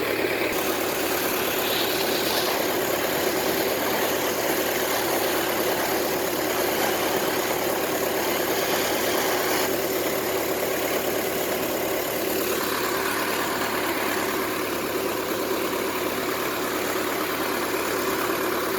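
An engine idling steadily, a continuous even running hum with small shifts in tone but no distinct knocks or bangs.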